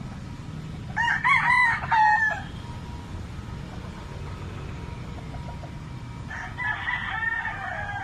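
Roosters crowing: one loud cock-a-doodle-doo about a second in, lasting about a second and a half, and a second, quieter crow near the end.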